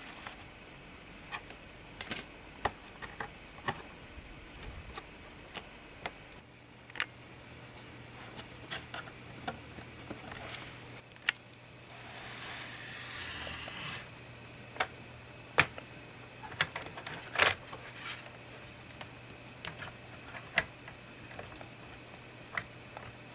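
Scattered small clicks and taps from handling laptop parts and tools, with a short scraping rustle about twelve seconds in.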